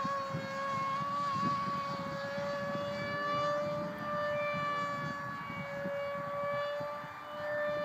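Electric motor and propeller of a HobbyKing Darkwing RC flying wing whining in flight: a steady high tone that rises briefly as the throttle opens at the start, then holds with slow swells in loudness.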